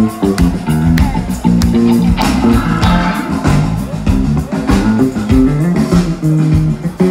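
Live band playing on an outdoor festival stage, heard loud from within the crowd: plucked guitars over a walking bass line, with sharp regular hits in the beat.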